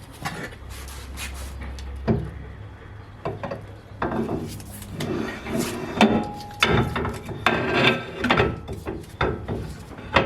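Rear axle shaft being worked back into the axle housing: irregular metal scraping, rubbing and knocking, which grows busier from about four seconds in.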